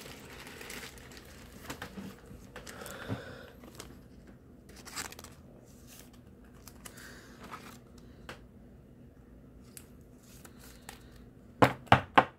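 Clear plastic card sleeve and pack wrapper crinkling and rustling as trading cards are handled and slid into a sleeve, with scattered small clicks. A quick run of sharp taps comes near the end.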